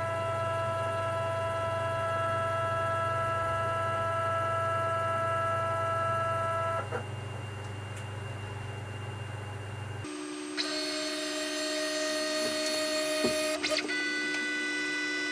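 Stepper motors of a DIY CNC machine whining steadily as the Z axis runs a homing and probing cycle. The whine stops about seven seconds in, and a different-pitched whine starts about ten and a half seconds in, over a low hum that cuts out at about ten seconds.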